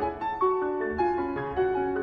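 Background instrumental music: a melody of short notes, changing every few tenths of a second, over held lower notes.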